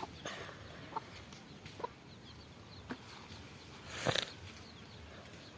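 Chickens clucking outdoors: a few short, separate clucks about a second apart, with one louder, sharper sound about four seconds in.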